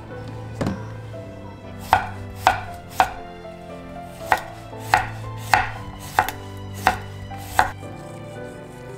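Chef's knife slicing a cucumber into rounds on a wooden cutting board: nine crisp knocks of the blade on the board, roughly every half second, that stop shortly before the end. About a second before them there is one softer thump.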